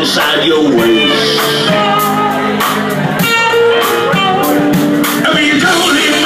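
Band music with a lead electric guitar playing held notes over drums and cymbals, in a blues-soul style.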